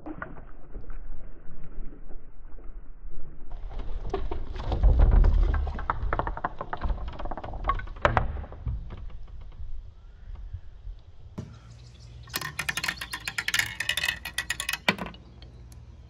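Glass marbles rolling down wooden tracks with a low rumble, and many sharp clicks as they knock against the wood and each other. The clicking is densest near the end, as marbles clatter together in a wooden catch box.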